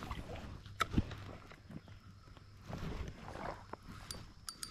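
Faint scattered clicks and knocks, with a sharper click about a second in. Near the end a fishing reel starts to click with a thin high whir.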